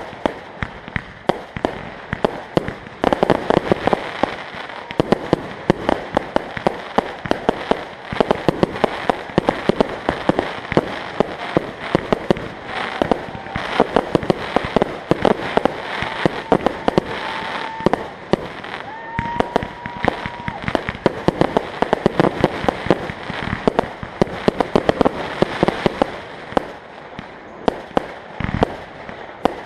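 Fun Force fireworks display: shots launching and bursting in rapid, unbroken succession, several bangs a second, with a few short whistle-like tones about halfway through.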